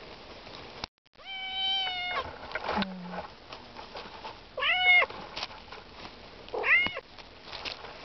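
Tortoiseshell domestic cat meowing three times: a long, level meow, then two shorter meows that rise and fall in pitch.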